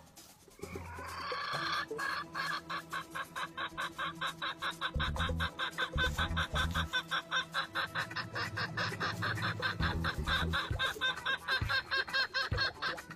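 Red junglefowl (labuyo) clucking: a short rising note about a second in, then a fast, even run of clucks, about six a second.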